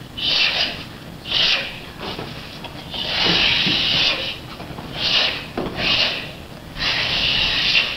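Hissing bursts about once a second from taekwondo students performing a form: forceful breaths and swishing uniforms with each strike and block, some short, some drawn out for about a second.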